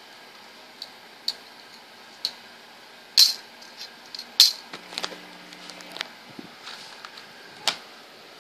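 Sharp metallic clicks and taps as a flat steel multi-tool card and a steel ruler are handled against each other, about a dozen, the two loudest a little over three seconds in and about a second later.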